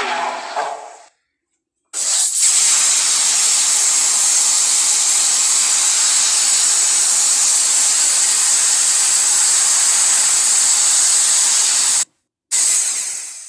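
A long, steady hiss like escaping steam, a creature sound effect, running about ten seconds before cutting off suddenly, then a shorter hiss that fades out. At the very start, the tail of a preceding sound dies away.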